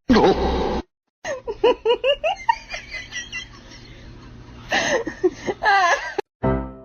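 A person giggling and laughing in quick runs of short rising-and-falling bursts, in two bouts, after a loud, brief noisy burst at the very start.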